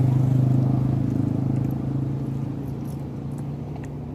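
A motor vehicle passing on the road, its engine a steady low drone that is loudest at the start and fades away as it drives off.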